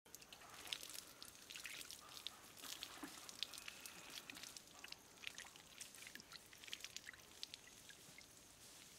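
Faint sloshing, splashing and dripping of water as raw chicken legs are washed by hand in a metal bowl, an irregular string of small splashes and drips.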